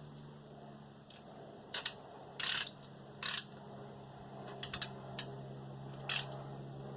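Hand tools clinking and scraping on metal fasteners, about seven short separate knocks, as bolts are snugged down lightly on a Chevy 305 V8, over a steady low hum.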